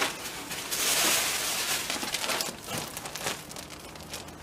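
Clear plastic packaging crinkling and rustling as it is handled, loudest about a second in, with short crackles throughout.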